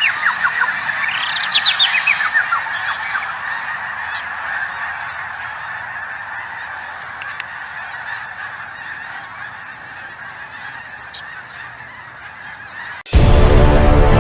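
A flock of birds calling in a steady chorus, with a run of quick falling calls early on. The chorus fades slowly and is cut off by loud music about a second before the end.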